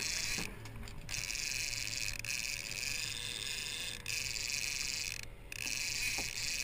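Fishing reel drag buzzing with rapid clicks as a hooked striped bass pulls line off, in runs with two short pauses.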